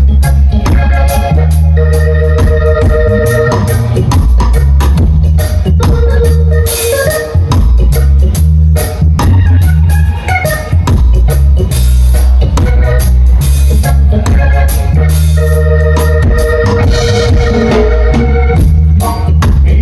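Live roots reggae band playing an instrumental passage: organ chords held over a heavy bass line and drums.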